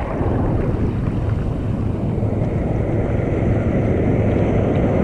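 Steady wind rumble on a GoPro's microphone, with sea water sloshing around the camera at the surface.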